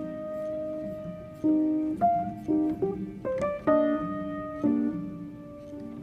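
Background music: piano or keyboard notes, some held and some in quick runs, with no speech.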